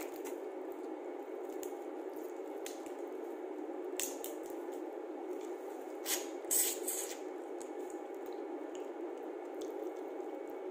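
Cooked shellfish being peeled and eaten by hand: soft wet squishing and small shell crackles, with a cluster of louder wet eating sounds about six to seven seconds in, over a steady background hum.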